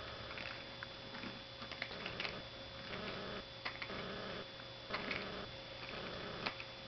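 Shiba Inu puppy gnawing a flat chew on the floor: small, scattered clicks and ticks of her teeth on it.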